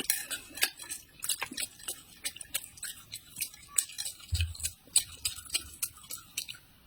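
Close-miked chewing and mouth sounds: irregular wet clicks and crunches, several a second, with a low thump about four and a half seconds in.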